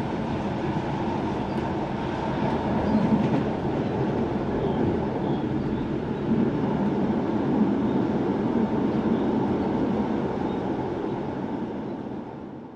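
Rhaetian Railway narrow-gauge passenger train heard from inside the carriage while running along the track: a steady rumble of wheels and running gear, fading out near the end.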